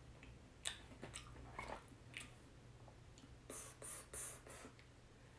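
Faint chewing and mouth sounds with a few soft clicks and short rustles, over a low steady hum.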